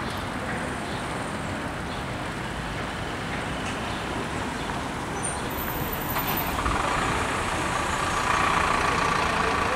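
Street traffic noise: passing road vehicles, getting louder about two-thirds of the way through as one comes closer.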